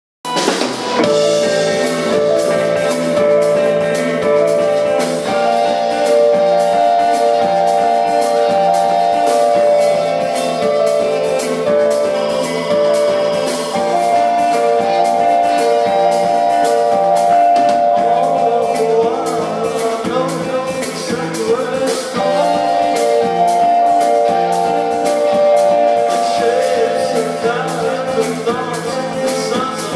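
Live indie rock band playing: electric guitars, bass, keyboard and drum kit, with held keyboard chords and steady drums and cymbals. The music starts at once and stays loud throughout.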